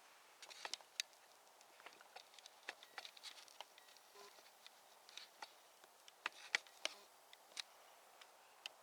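Faint, irregular clicks and light rustling, a few a second and unevenly spaced, over near silence.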